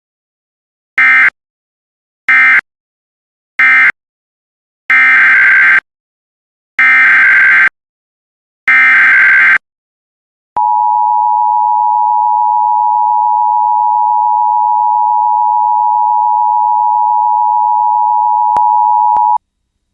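Emergency Alert System SAME data tones: three short end-of-message bursts, a pause, then three longer header bursts for the next alert. Then the EAS attention signal follows as a steady, loud tone held for about nine seconds.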